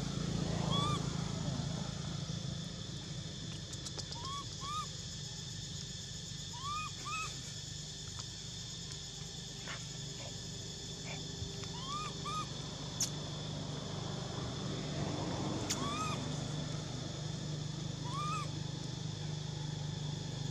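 Outdoor ambience with a steady low hum, broken every few seconds by short rising-and-falling chirping calls, mostly in pairs, and a few sharp clicks.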